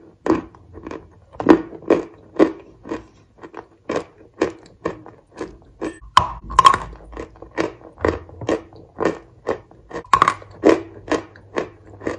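A person chewing Turkestanchiki cookies with the mouth open, crunching about twice a second.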